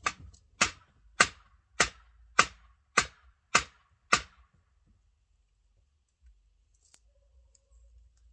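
Eight sharp, evenly spaced hammer blows, a little under two a second, over about four seconds, then they stop.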